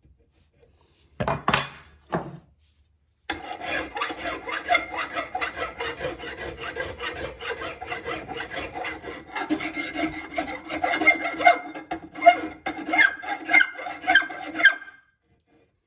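A rough hand file rasping in rapid strokes across solder between the steel barrels of a side-by-side shotgun, the barrels ringing as it bites. A short scrape comes about a second in, and the steady filing starts a couple of seconds later. The file is starting to cut into the barrel steel, which means the solder is filed down close to flush.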